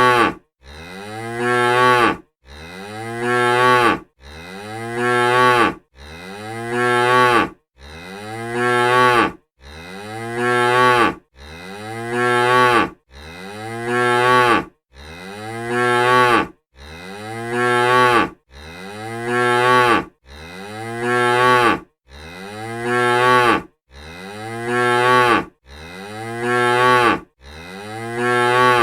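A cow mooing: the same single moo repeated over and over, about one every two seconds. Each moo swells in loudness and then cuts off abruptly.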